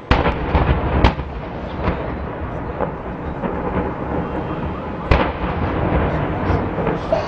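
Gas explosion: a sudden heavy blast, then a rumble that carries on, with further sharp bangs about a second in and about five seconds in.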